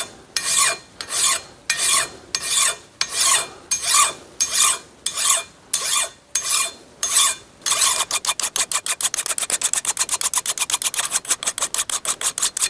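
Flat hand file rasping across the cast body of a Bison bench vise in even strokes about two a second, dressing down casting lines before paint. About eight seconds in, the strokes come much faster and shorter, as the footage is sped up.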